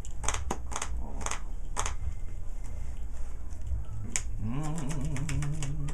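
Sharp clicks and snaps of playing cards being handled and set down on a table, a handful in the first two seconds and a quick run of them near the end. Near the end a low wavering hum also sounds for about a second and a half.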